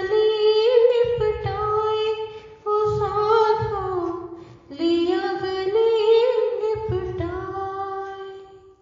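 A woman singing a Hindi devotional song to Shiva, drawing out long melodic phrases on held notes with slow glides, then trailing off at the end.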